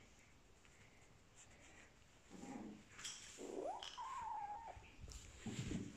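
A kitten mewing faintly: a short mew a little over two seconds in, then a longer meow that rises in pitch and holds for about a second.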